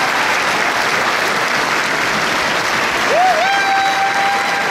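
A large crowd clapping steadily. About three seconds in, one voice rises out of it in a long, held whoop that swoops up and then stays on one pitch.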